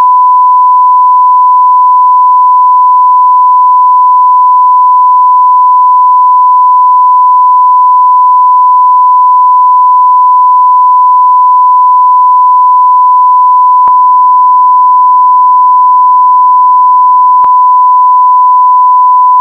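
Continuous censor bleep: a single steady 1 kHz sine tone, loud and unbroken, with two faint clicks in the latter part.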